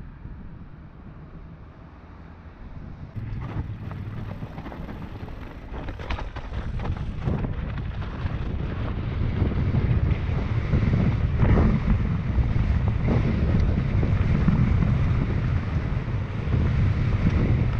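Wind buffeting the microphone of a helmet-mounted camera on a mountain-bike descent, growing louder as the bike picks up speed. Short knocks and rattles of the bike going over a rocky trail come through it, most of them in the middle part.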